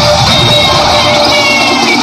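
Loud, upbeat dance music playing for an aerobics routine.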